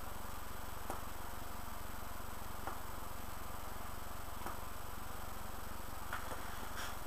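Steady electrical hum and hiss from the recording, with a few faint short ticks every couple of seconds.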